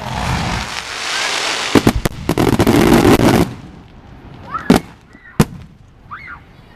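Fireworks display: a loud hissing rush with crackling pops for about three and a half seconds that cuts off suddenly, then two sharp bangs of shells bursting, under a second apart.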